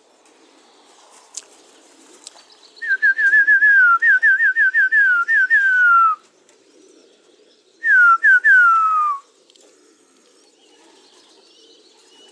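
A person whistling to call homing pigeons down to the loft: a quick run of short, falling whistles lasting about three seconds, then after a pause three more, the last one long and sliding down in pitch.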